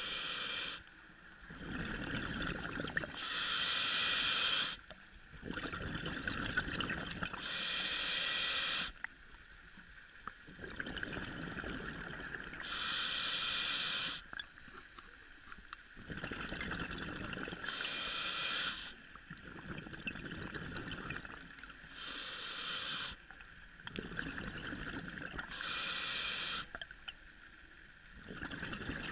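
Scuba diver breathing through a regulator underwater: a hissing breath and a rush of exhaled bubbles in a slow, even cycle, repeating about every four to five seconds with short quiet gaps between.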